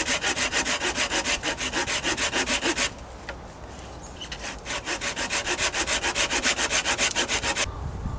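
Small hand saw cutting through a wooden pole in rapid back-and-forth strokes, about six or seven a second. Two runs of sawing, with a pause of a second or two about three seconds in.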